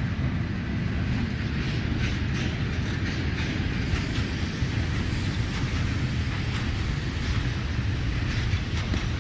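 Train running on the track, a steady low rumble.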